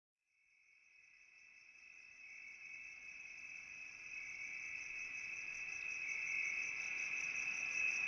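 Steady high-pitched insect trill, cricket-like, fading in about a second in and growing gradually louder.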